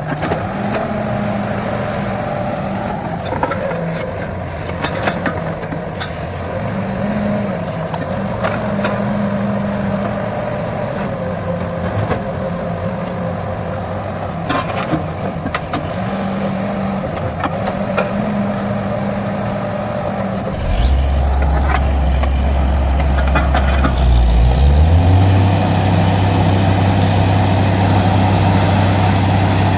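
Borewell drilling rig's engine running under load with scattered knocks, its note wavering; about 21 s in a deep heavy hum starts up, and a few seconds later it steps up in pitch with a rising high whine as the rig speeds up.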